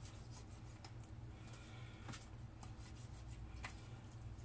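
Faint sounds of a knife cutting through a raw chicken to take the leg and thigh off at the joint: a few soft clicks and rubbing over a low steady hum.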